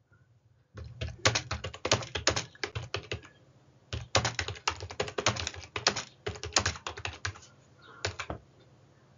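Typing on a computer keyboard: two quick runs of keystrokes with a short pause between them, then a few last keys near the end.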